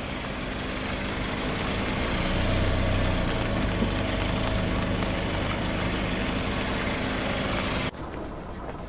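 A car engine running at low speed, swelling louder a couple of seconds in, as the car rolls slowly forward. Near the end it cuts abruptly to a quieter, duller engine sound.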